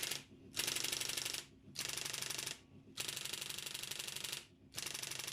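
Facit 1820 electric typewriter striking in rapid automatic repeat as its repeat keys are held: several runs of fast, even clicks, each lasting about a second, with short pauses between. The repeat keys run briskly, showing the mechanism is working freely.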